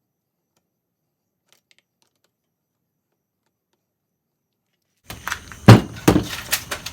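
Silence for about five seconds, then a run of sharp metallic clinks and knocks as small motorcycle engine parts are handled and set down, the loudest about half a second after they begin.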